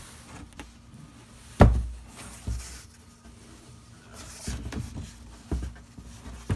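Thumps and knocks of a large cardboard box being handled and turned around, with the loudest thud about one and a half seconds in and several lighter bumps after.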